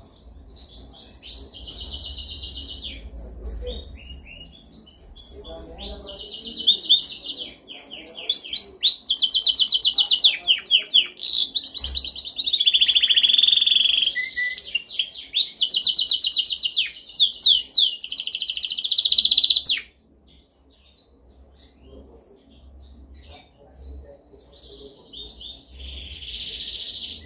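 Domestic canary singing a long run of rapid trills and rolled phrases, loudest in the middle stretch, breaking off abruptly about two-thirds of the way in, then resuming more faintly near the end.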